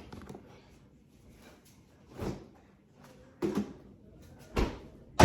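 Kitchen handling sounds: a short scraping slide about two seconds in, then two separate knocks, like dishes, a drawer or a cupboard being moved.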